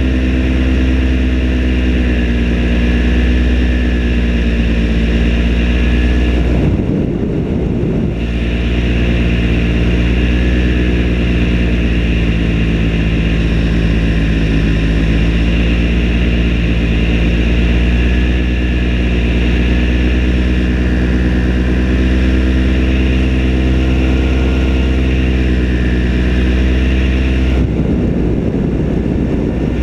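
Paramotor engine and propeller running steadily at cruise power in flight, a loud constant drone with a slight drift in pitch. The sound is briefly broken up twice.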